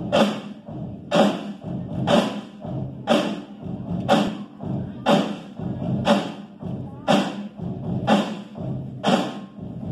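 A drumline of marching snare drums playing a cadence together, with a loud unison accent about once a second and quieter strokes in between.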